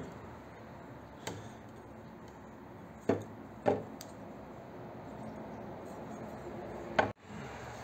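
A few sharp knocks and clinks, four in all, from a drilled steel plate and its metal chips being handled and set against a metal drill press table.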